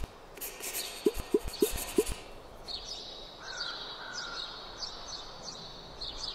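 Sound effects for an animated logo: a pen scratching on paper with four short popping notes, then birds chirping over and over from about three seconds in.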